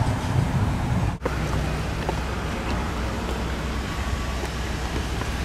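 Steady outdoor street noise: traffic and a low wind rumble, with no speech. The sound changes abruptly about a second in.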